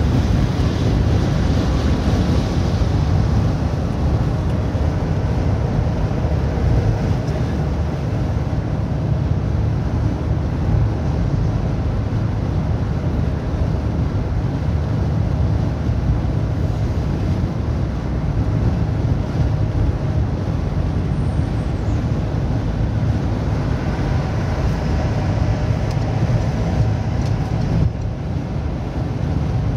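Steady engine and tyre noise of a road vehicle being driven, a continuous low rumble with no sudden events.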